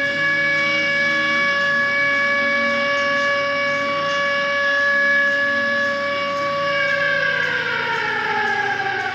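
Outdoor tornado warning siren sounding a loud, steady tone, whose pitch begins to fall about seven seconds in.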